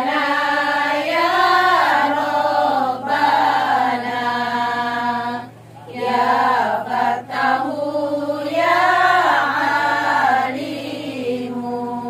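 Women's group singing sholawat together in unison, unaccompanied, in long held, gliding phrases, with a short break for breath about five and a half seconds in.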